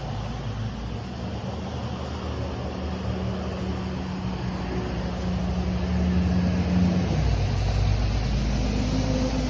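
Motor vehicle engine running nearby, with its low hum shifting in pitch and growing louder over the last few seconds before cutting off abruptly.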